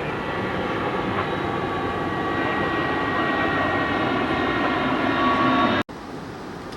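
Loud engine running steadily with a high whine over it, cut off abruptly about six seconds in.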